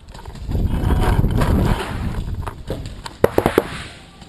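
Low rumble of handling and movement noise against the gear, then a rapid burst of four sharp paintball pops a little over three seconds in.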